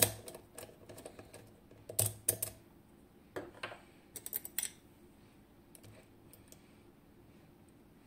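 Short, sharp metallic clicks of a key being worked out of a DOM IX Twido pin-tumbler cylinder and of small metal tools being handled, in a few quick clusters over the first five seconds.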